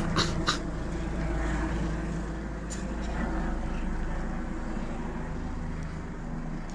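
Rescue helicopter flying overhead at a distance: a steady low rotor and engine drone that fades slightly near the end. Two short clicks come just after the start.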